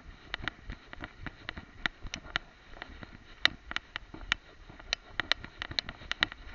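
Irregular sharp clicks and rattles, several a second, over a low rumble: the movement and knocking noise of a small camera worn on a dog as the dog moves about and shakes its head.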